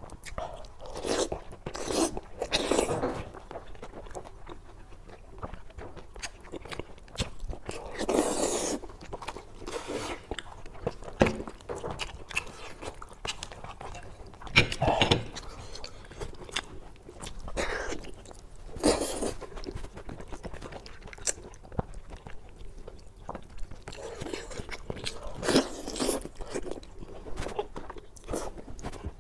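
Close-miked eating: a person biting and chewing spicy braised head meat pulled off by hand, in irregular bursts every second or two.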